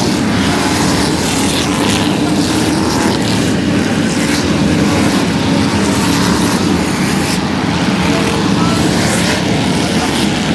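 Several car engines running loudly and steadily together on a race track.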